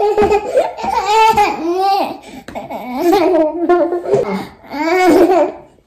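A baby laughing and babbling, high-pitched, in four long bursts.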